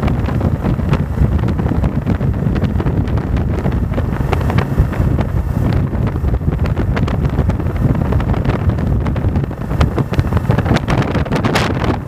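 Wind buffeting the microphone of a handlebar-mounted camera on a moving Yamaha motorcycle, over the low drone of the bike's engine.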